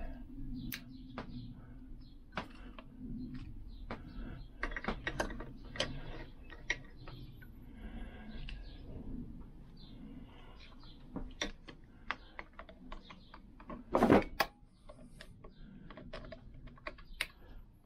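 Small metal clicks, taps and scrapes of long-nose pliers working a wire circlip into the wrist-pin groove of a 186 kit piston, with one louder clank toward the end.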